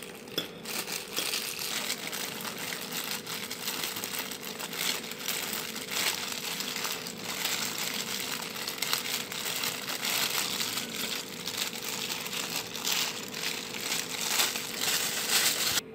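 Thin plastic food-prep gloves crinkling and rustling continuously as hands shred crisp fried dried fish and pick out the bones on a plate, with many small crackles.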